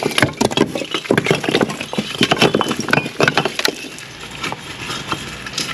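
Old, crumbling bricks pulled by hand off the top of a brick wall, tumbling and clattering onto a heap of loose bricks: a rapid run of knocks and clinks that thins out about four seconds in.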